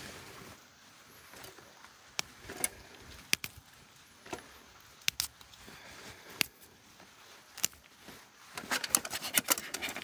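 Scattered light clicks and clinks as a Keith titanium pot and its steamer insert are handled and set in place, with a quick run of taps near the end.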